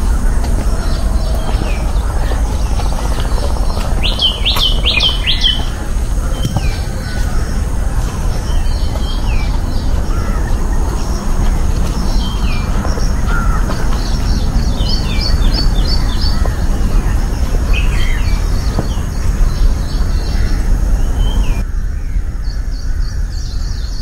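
Wild birds chirping repeatedly in the trees, with a quick run of chirps about four seconds in, over a steady low rumble.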